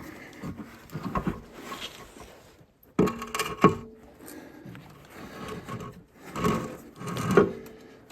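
Irregular knocks, clunks and scraping of heavy metal parts being handled during a diesel engine teardown, with a sudden clatter about three seconds in and several sharp knocks later.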